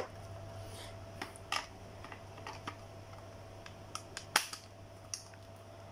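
Scattered light clicks and knocks of a hard-plastic cordless drill being handled and turned over, about eight to ten in all, the sharpest about four and a half seconds in, over a faint steady hum.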